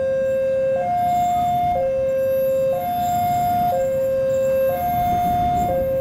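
An electronic two-tone warning alarm switching between a low and a higher note about once a second. Under it is the low rumble of an approaching diesel locomotive.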